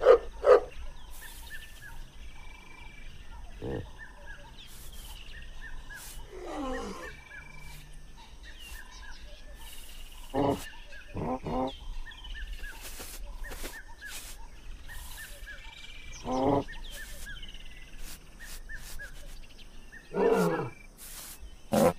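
Short animal calls, about ten spread across the stretch, some in quick pairs, a couple drawn out and falling in pitch, over a faint steady background of bird chirps.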